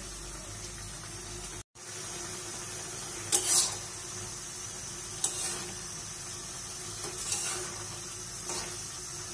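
A vegetable curry bubbling in a metal kadai, with a spatula scraping the pan about four times as it is stirred. The sound cuts out for an instant about two seconds in.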